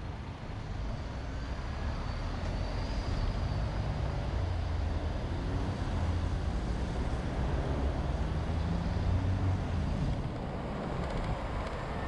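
Car driving along a road: steady engine hum and tyre rumble, getting a little louder in the first couple of seconds.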